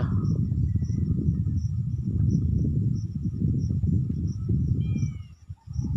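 A cricket chirping in a steady, even rhythm, a few chirps a second, over a louder low crackling rumble.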